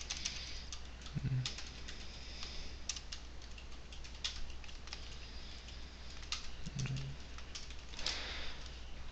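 Computer keyboard being typed on in irregular spurts of key clicks, over a low steady hum.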